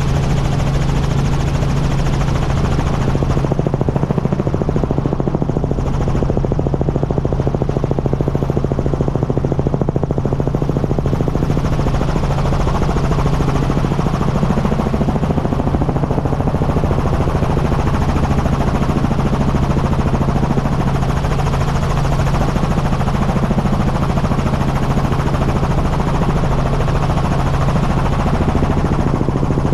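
Helicopter in flight: a steady, unbroken drone of rotor and engine with a strong constant low hum, picked up by a camera mounted on the outside of the airframe.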